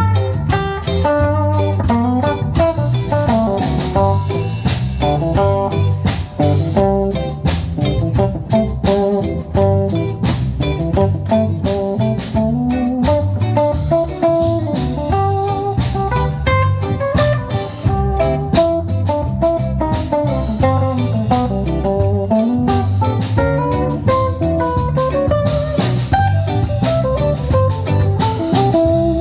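A band playing an instrumental break with no singing: guitar carrying a melody that bends up and down, over bass and a drum kit.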